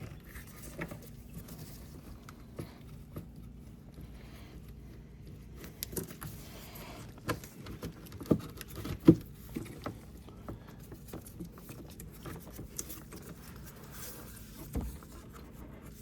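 Scattered light clicks and knocks of hands and tools working on plastic and metal parts in a car's engine bay, with two louder knocks a little after the middle, over a steady low hum.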